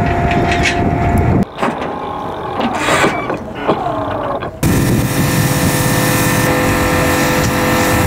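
Spliced boatyard sounds that change abruptly twice. A steady machine hum with one held tone, then about a second and a half in a quieter stretch of knocks and short falling squeaks, then from about four and a half seconds a steady motor drone.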